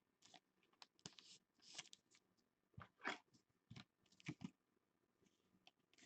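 Faint handling noise: a scattered series of light clicks and rustles as trading cards in plastic holders are handled and set down.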